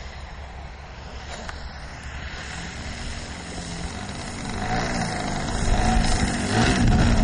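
Engine and propeller of a radio-controlled Katana aerobatic model plane in flight. It is faint at first and grows much louder over the second half as the plane comes in low, its pitch shifting with the throttle.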